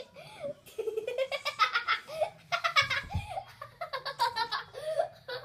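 Two children laughing hard in several fits of giggles, with a soft low bump about three seconds in.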